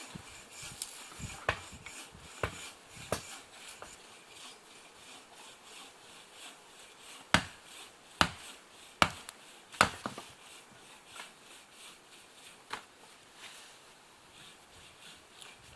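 Wood being struck: scattered sharp wooden knocks and taps, with four loud knocks in a row, less than a second apart, near the middle.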